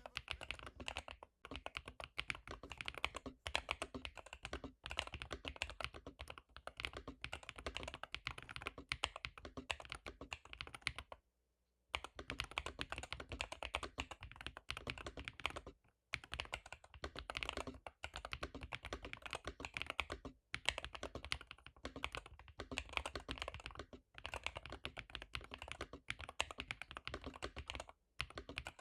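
Fast continuous typing on an AULA Hero 99 keyboard fitted with Gateron Magnetic Jade Pro magnetic switches: rapid, crisp key strikes, with a brief pause about eleven seconds in and another around sixteen seconds.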